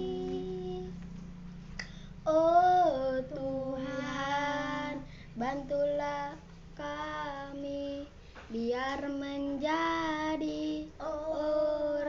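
Child singing a slow Indonesian song without accompaniment, in long held notes with short breaths between phrases.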